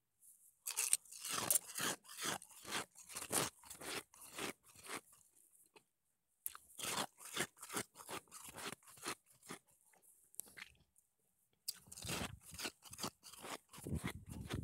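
Close-up chewing of Sonic nugget ice: a quick run of crisp crunches, two or three a second, with a short pause a little past halfway.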